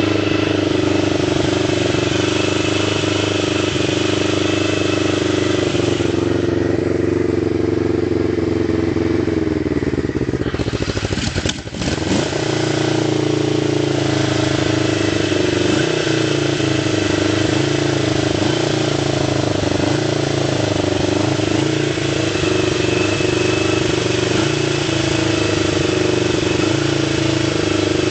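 Yamaha XS500 parallel-twin motorcycle engine running. About ten seconds in, its speed sags and the sound briefly dips. It then picks up again and keeps running with its speed wavering up and down.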